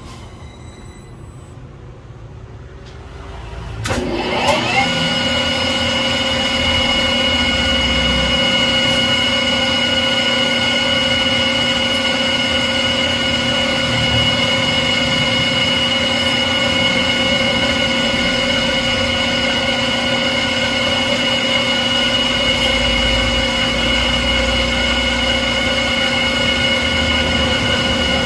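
A small metal lathe is switched on with a click about four seconds in. It spins up quickly, then runs steadily with a constant whine while it cuts a white engineering-plastic rod.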